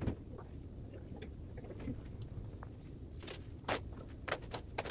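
Steady low hum of a large room, with a knock at the start and a quick run of short clicks and taps near the end from someone working at the aisle runner close by.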